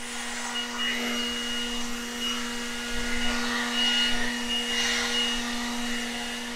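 Milwaukee cordless leaf blower running steadily, blowing dirt off a concrete yard: a constant motor hum under rushing air.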